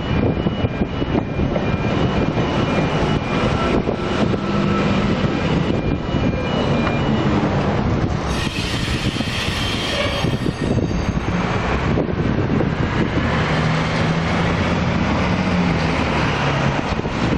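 V set double-deck electric intercity train rolling past over a level crossing, its wheels running on the rails with a thin steady squeal until the last carriage goes by about seven or eight seconds in. After that there is a brief hiss, then the steady rumble of road traffic.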